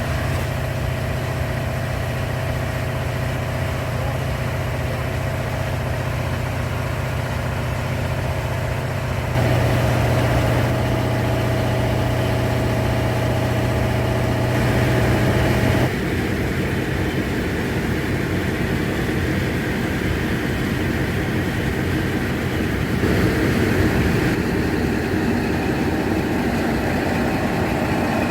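Diesel engine of a KIHA 183 railcar running steadily with a low drone, getting louder for several seconds about a third of the way in and dropping back about halfway through.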